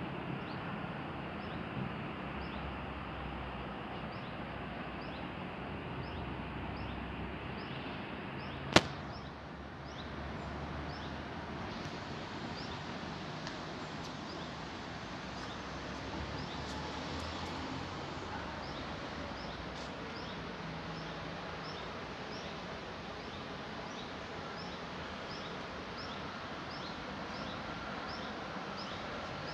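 Steady hum of distant road traffic, with a heavier low engine rumble in the first ten seconds or so. A single sharp, loud click about nine seconds in, and a small high chirp repeating about three times every two seconds throughout.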